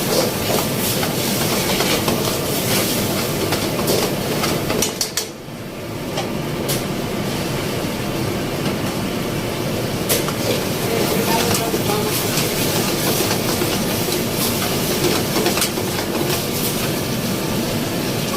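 Spinach sabzi sizzling in a hot pan, with oil crackling and spitting in many short sharp pops over a steady hiss; the sizzle briefly drops away about five seconds in, then picks up again.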